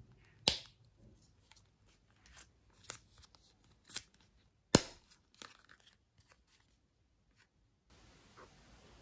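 Small hard-plastic parts of a miniature toy ironing board being handled and snapped together: a series of sharp plastic clicks and snaps, the loudest about halfway through.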